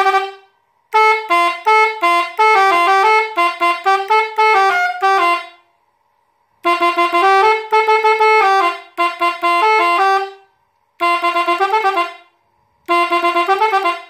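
Three-trumpet bus horn worked from an eight-button controller, playing quick melodic tunes of rapidly changing notes. It sounds in four phrases, the first and longest about four and a half seconds, each broken off by a short pause as the buttons are pressed.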